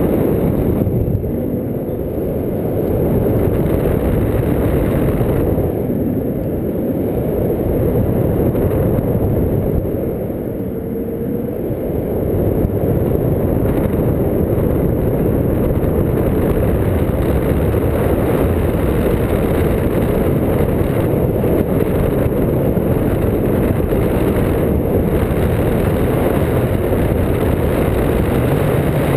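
Steady wind noise on the microphone of a camera mounted on a paraglider wing, caused by the airflow in flight; it eases briefly a few times.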